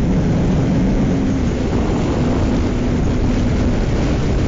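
Kawasaki ER-5's parallel-twin engine running at road speed with a steady note, under a heavy rush of wind on the microphone.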